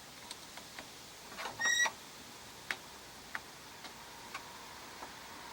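Scattered light clicks and taps of hand tools and small parts on a snowblower carburetor, with one brief metallic clink that rings just under two seconds in.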